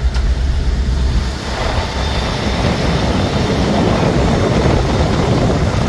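Tornado-strength wind blowing hard, a loud continuous rushing with a deep rumble on the microphone that eases about a second and a half in.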